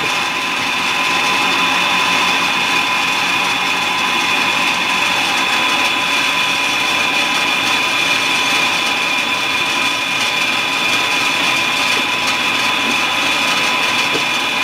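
Enco horizontal band saw running under coolant and cutting through a round metal bar: a steady mechanical whine made of several high tones over a hiss, holding even throughout.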